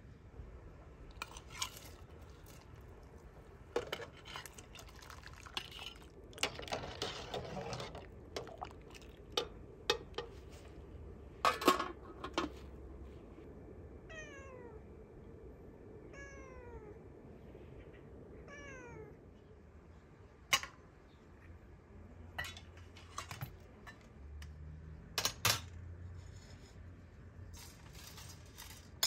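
Domestic cat meowing several times, each call falling in pitch, amid scattered clinks and knocks of bowls and utensils being handled.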